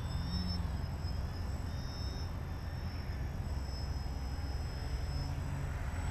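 Radio-controlled aerobatic plane flying low past, its motor and propeller giving a faint high whine that rises and falls in pitch as it manoeuvres, over a steady low rumble.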